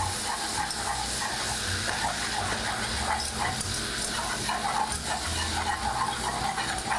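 Butter sizzling as it melts in a hot pan, stirred with a whisk in irregular scrapes.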